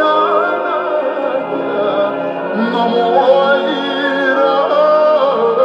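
A vinyl record playing on a vintage Columbia stereo record player through its speakers: a singer with wide vibrato, in an operatic style, over steady instrumental accompaniment.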